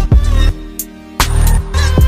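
Electronic hip-hop music with heavy bass and sharp drum hits.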